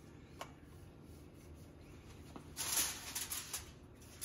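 Faint room hum, then about two and a half seconds in a short hiss from an aerosol can of cooking spray, followed by a few light clicks.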